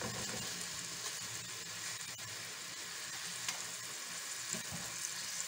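Small diced onion sizzling in hot olive oil in the bottom of an open pressure cooker, freshly added to the pan.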